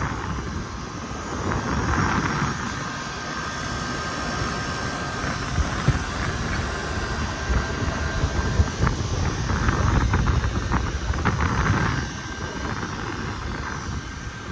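Outdoor air conditioner units running with a steady mechanical hum, under heavy wind buffeting the microphone.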